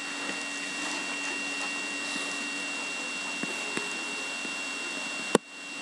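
Steady hiss and hum of room tone, with a faint high whine. There are a few faint ticks midway and one sharp click near the end.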